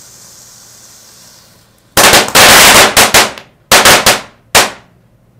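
Small Flashing Fountain firework hissing faintly as it burns, then from about two seconds in breaking into very loud crackling: rapid sharp pops in a few dense bursts, the last one near the fifth second. The crackling is the crackle effect at the end of the fountain's burn.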